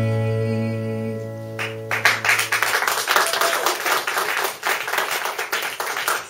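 The last chord of the song on an acoustic guitar rings out and fades away. About two seconds in, the audience breaks into applause, which carries on.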